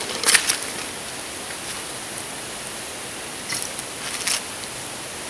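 Food sizzling in a bush pot over a campfire: a steady high hiss, broken three times by short scrapes or crackles.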